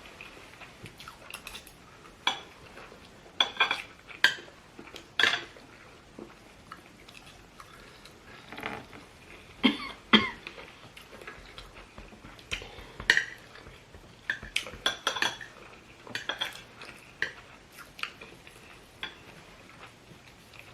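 Cutlery clinking against plates and bowls during a meal: a scattered series of sharp, ringing clinks, some much louder than others.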